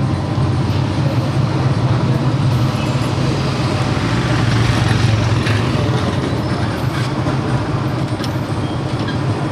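Steady low rumble of motor-vehicle engines and road traffic.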